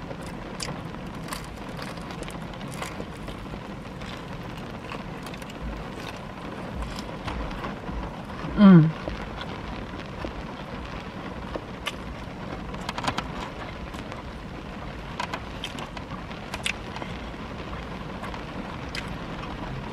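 Rain falling steadily on a car, heard from inside the cabin, with scattered small clicks. About nine seconds in there is a short hum that falls in pitch.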